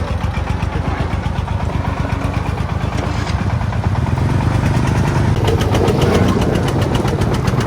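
Single-cylinder diesel engine of a công nông farm truck chugging with a fast, even beat, growing louder about halfway through.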